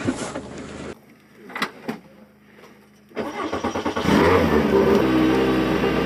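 Rally car engine cranked by its starter, catching about four seconds in with a short burst of revs, then settling into a steady idle. Before that, rubbing on the dashboard-mounted camera and a couple of clicks.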